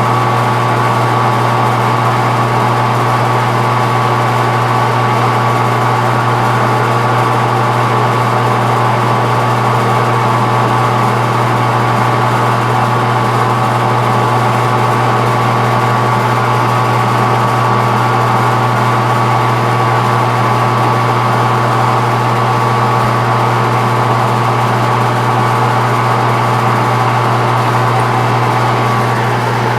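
Metal lathe running steadily, its motor and drive giving a constant low hum with a thin steady whine above it.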